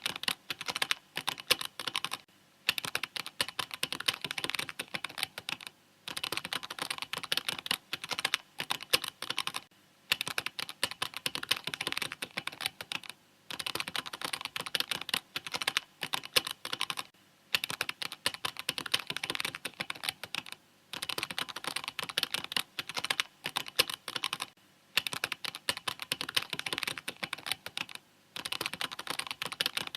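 Mechanical keyboard being typed on in fast, steady runs of keystrokes. The runs are broken by brief pauses about every three to four seconds.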